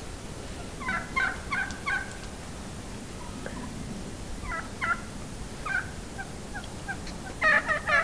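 Wild turkeys calling: a rapid rattling gobble about a second in and another, louder one near the end, with scattered short calls between.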